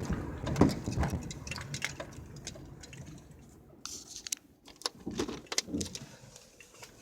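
Sharp pops and clicks from the front end and undercarriage of a 2005 Chevy Cavalier while it is driven. The loudest pop comes about half a second in, another about a second in, and smaller clicks follow near the five-second mark, over road noise that dies away. The owner thinks the steering is out of line since the front end was loosened and retightened for a new rack and pinion.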